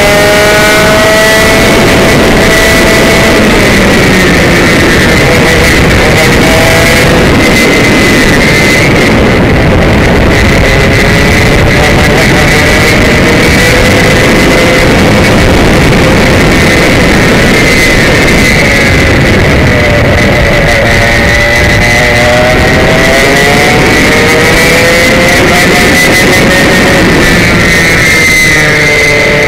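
Komet K77 two-stroke kart engine at racing speed, its buzz rising and falling in pitch through the corners, heard from the driver's seat. Loud and distorted, over a steady rush of wind and road noise.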